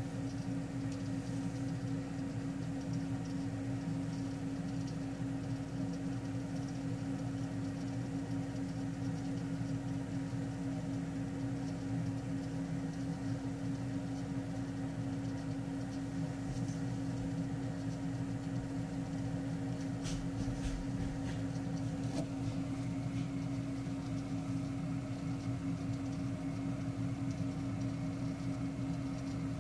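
Steady machine hum with one strong low tone and weaker tones around it. A few faint clicks and a low bump come about two-thirds of the way through.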